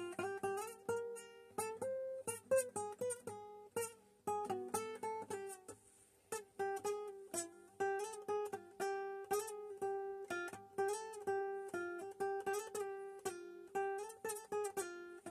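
Solo acoustic guitar picking a quick single-note melody, plucked notes with many rapid repeats on one pitch, with a brief pause about halfway through.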